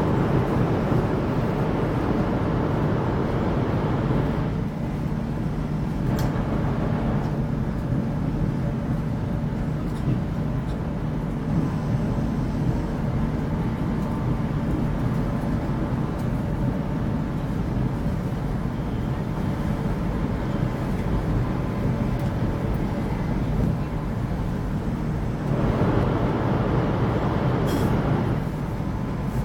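Cabin noise of a Chinese high-speed train running at about 300 km/h: a steady rumble and rush. It is louder for the first four seconds or so, and again for about three seconds near the end, when another high-speed train passes the other way at a combined 600 km/h.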